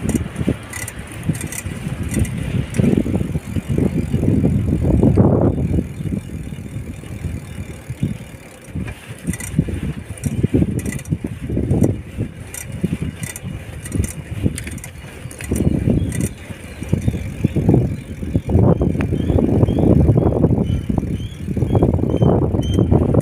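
Wind rumbling on the microphone, swelling and fading unevenly, with road noise and faint ticking and rattling while moving along a street.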